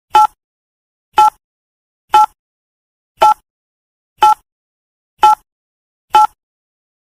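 Countdown timer sound effect: a short pitched tick about once a second, seven ticks in all, evenly spaced with silence between.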